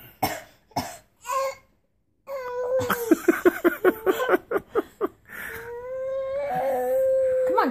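A few short cough-like bursts, then a baby girl's voice in quick stuttering sobs and one long drawn-out cry: she is upset that she can't make a cough.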